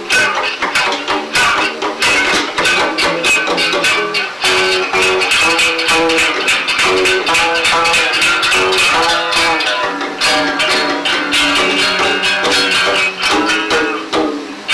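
Live band music with fast, dense strummed guitar, played back from a mono cassette tape recording of a live set.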